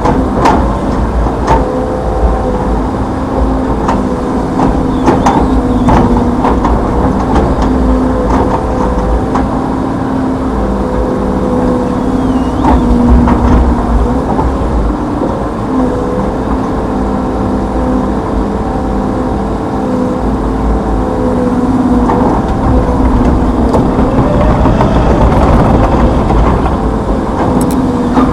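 Hitachi Zaxis 210F excavator's four-cylinder turbodiesel and hydraulics running steadily at working load, the engine note dipping briefly now and then. Scattered short knocks and clanks sound over a heavy low rumble.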